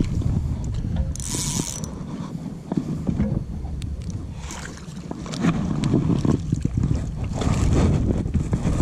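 Hooked largemouth bass splashing at the surface as it is reeled up beside a plastic fishing kayak, with knocks and handling noise against the hull and wind rumble on the microphone. A sharp splash comes about a second in and more thrashing from about five and a half seconds.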